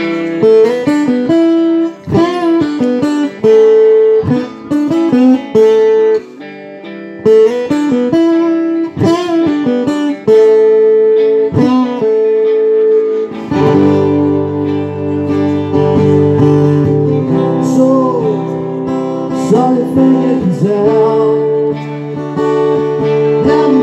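Live rock band playing an instrumental break: strummed acoustic guitar under a lead line of bent, sliding notes, with the band coming in fuller and lower bass notes joining about halfway through.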